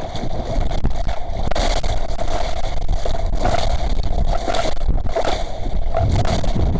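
Strong wind buffeting the microphone and water rushing along the hull of a small sailing yacht heeled under reefed sail, in uneven surges over a low rumble, with a steady hum running through it.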